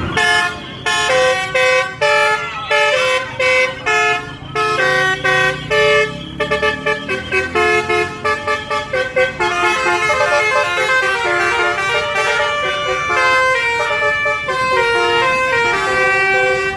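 Bus basuri telolet horn, a set of musical air horns, playing a tune: short separate notes for the first half, then longer, overlapping notes, as if more than one horn set is sounding together.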